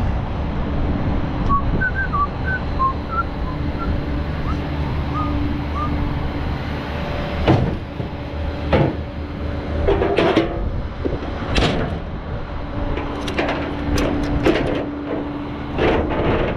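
Truck running with a steady low rumble and drone. A few faint short squeaks come early, and several sharp knocks or rattles come in the second half.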